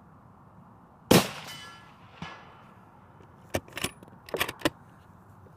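A suppressed 6.5 PRC shot from a Mossberg Patriot LR Tactical bolt-action rifle, a sharp report about a second in that dies away with a faint ringing. A softer knock follows about a second later, the bullet striking a steel target downrange. Near the end comes a quick series of metallic clicks as the bolt is worked to chamber the next round.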